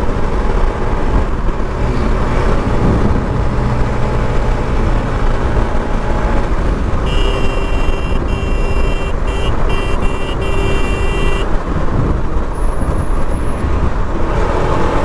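Motorcycle riding at highway speed: steady engine drone with wind and road noise. A vehicle horn sounds from about seven seconds in for roughly four seconds, in a few blasts with short breaks.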